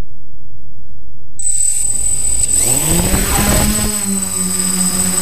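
DJI F550 hexacopter's six brushless motors, heard from a camera mounted on the frame. After a low rumble, a high steady whine comes in about a second and a half in, then the motors spool up in a rising hum as it lifts off and settle into a steady buzzing hum.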